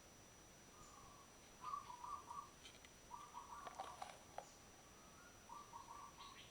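Faint bird calls: three short bursts of rapid, choppy chirping notes, over a faint steady high whine.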